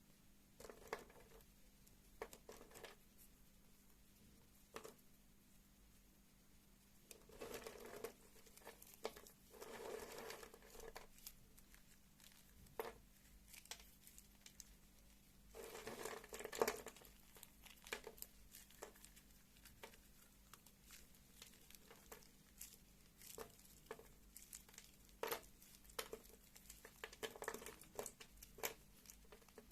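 Knife carving soft textured soap: scattered light clicks and crumbly scraping cuts, with a few longer scraping strokes in the first half.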